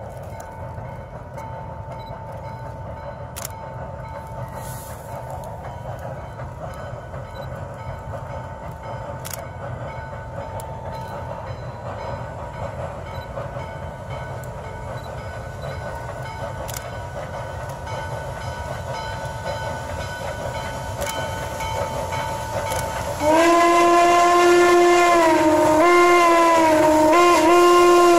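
WMSR 1309, a 2-6-6-2 Mallet steam locomotive, approaching with a freight train: a steady low rumble of exhaust and running gear that slowly grows louder. About 23 seconds in, its steam whistle blows loudly and is held, with a few brief dips and breaks in pitch near the end.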